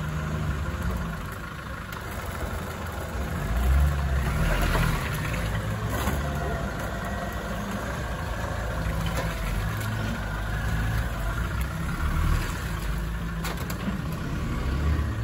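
Off-road 4x4's engine running at low revs, swelling with throttle a few times, with a few sharp knocks.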